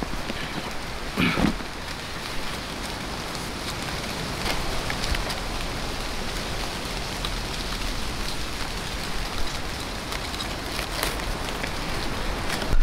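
Steady rain falling, an even hiss dotted with scattered drop ticks, with one short bump about a second in.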